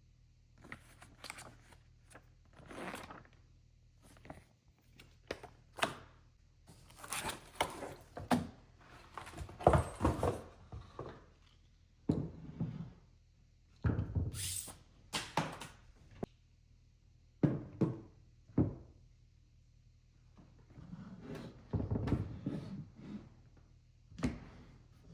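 Irregular handling sounds: thunks, knocks and rustling as the shotgun and its packaging are handled during unboxing, in short bursts separated by quiet gaps.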